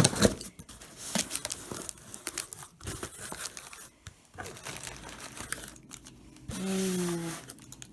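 A shipping package being torn open by hand: irregular tearing, crackling and crinkling of the packaging, with a sharp rip right at the start. A short low tone falling in pitch comes about six and a half seconds in.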